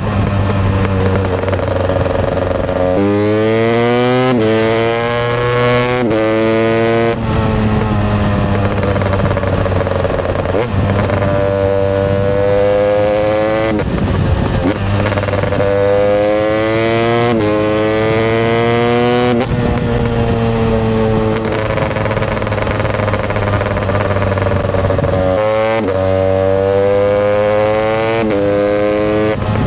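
Husqvarna TE 250i single-cylinder two-stroke dirt-bike engine being revved hard. Its pitch climbs and falls back sharply over and over, in quick succession near the end.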